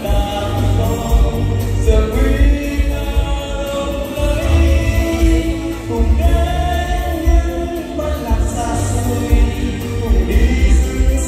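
A man singing into a microphone over an amplified backing track with a strong, pulsing bass line.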